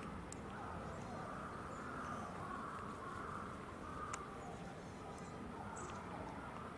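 Faint background ambience: an indistinct murmur of distant voices, with a few light clicks.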